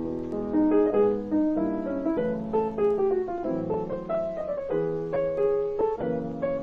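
Background piano music: a melody played over chords, the notes struck one after another.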